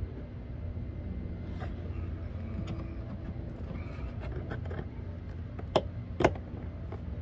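Light clicks and knocks of hand tools and plastic trim as work goes on inside a car's rear seat area, with two sharp clicks about half a second apart about six seconds in, over a steady low hum.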